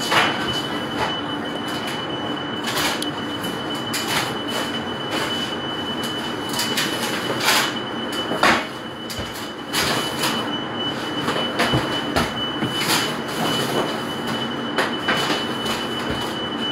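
Commercial bakery kitchen din: a steady machine rush with a thin high whine running throughout, broken by frequent clatters and knocks of trays and utensils being handled.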